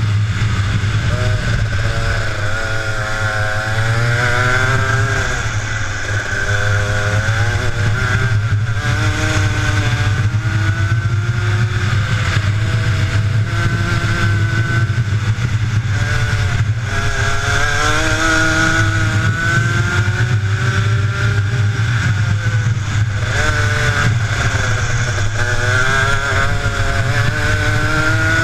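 Kart engine heard from onboard, its pitch repeatedly climbing as it accelerates and falling back as it slows for corners, over a steady low rumble.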